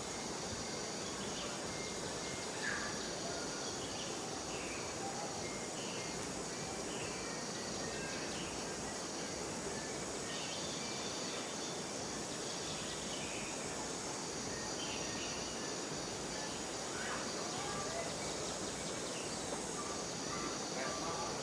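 Outdoor ambience: a steady, high-pitched insect drone with scattered short chirps over a constant background hiss.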